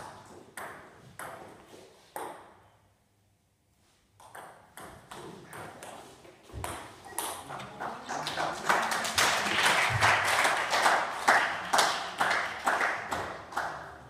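Table tennis ball clicking off bats and table in a rally, strokes about half a second apart. Over the second half comes a louder spell of dense clatter.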